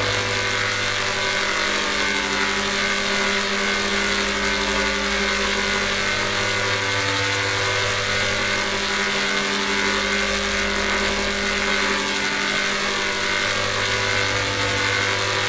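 A steady, electronically processed drone: several held tones stacked over a constant hiss, unchanging in loudness.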